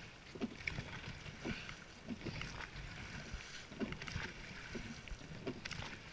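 Rowing boat under way with its crew pulling: oars knocking in their oarlocks and blades catching the water in a steady stroke rhythm, roughly every one and a half to two seconds, over a low rumble.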